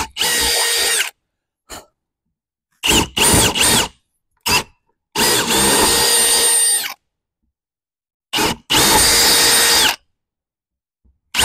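Cordless drill boring corner holes through the OSB sheathing into the polyurethane foam core of a structural insulated panel. It runs in several short bursts with pauses between, the motor whine spinning up at the start of each run and winding down at the end.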